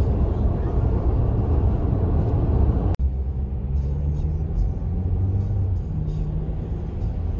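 Road noise inside a moving car's cabin: a steady low rumble of tyres and engine. It breaks off sharply about three seconds in and carries on a little quieter.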